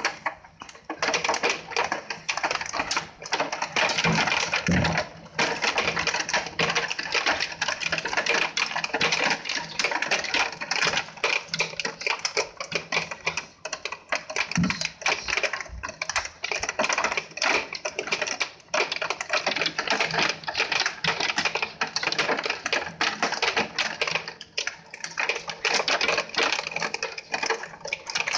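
Hail and rain pelting a window and its ledge: a dense, unbroken rattle of rapid clicking impacts over a steady hiss of rain.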